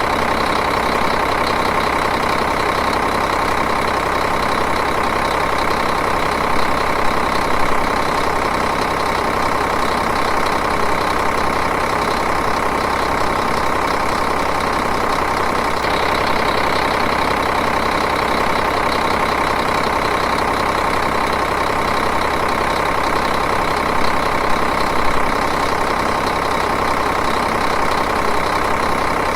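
Diesel engine idling steadily, an even running sound that holds the same pitch throughout.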